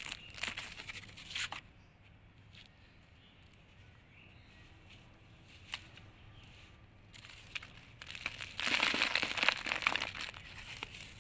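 Dry red brick sand crumbled between bare fingers: gritty crunching and crackling, quieter in the middle. Near the end comes the loudest burst, as a handful is crushed and the crumbs fall onto a piece of cardboard.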